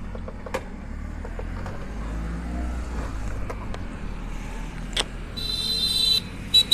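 Low steady rumble of road traffic. About five and a half seconds in, a short high-pitched tone sounds for under a second, and it comes again briefly near the end.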